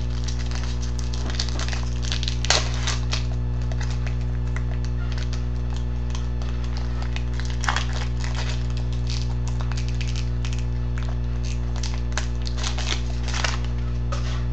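Trading cards and their foil pack wrapper being handled: irregular rustling, crinkling and small clicks as cards are flipped through, the sharpest crack about two and a half seconds in. A steady electrical mains hum runs underneath.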